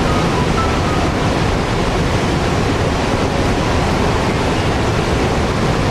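Niagara's Horseshoe Falls: a steady, dense rush of a huge volume of water pouring over the brink.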